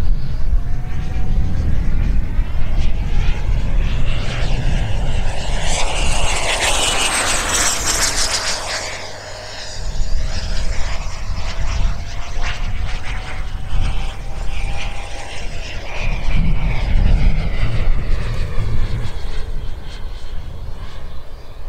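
Sebart mini Avanti S jet model's 90 mm WeMoTec Midi Evo electric ducted fan, driven by a HET Typhoon motor, in flight: a steady high whine with a rush of air that swells to its loudest about six to eight seconds in, the whine dropping away about three quarters in. A low rumble of wind on the microphone runs underneath.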